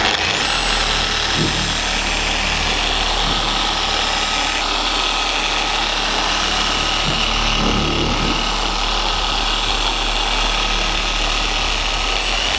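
Electric car polishing machine running steadily, buffing rubbing compound into the paintwork: the paint-correction step before ceramic coating.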